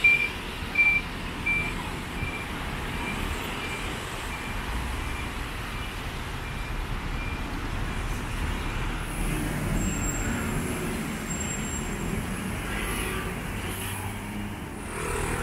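Busy city road traffic: cars, buses and scooters passing. A short high beep repeats about one and a half times a second through the first half and grows fainter.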